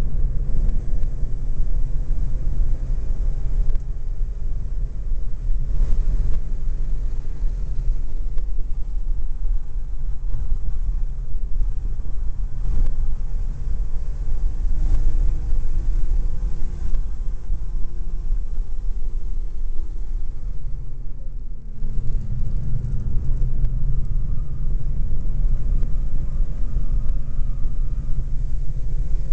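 Supercharged BMW E46 M3's 3.2-litre inline-six running at part throttle on track, with its pitch rising and falling gently. Heavy wind rumble hits the outside-mounted camera, and the sound dips briefly about 21 seconds in.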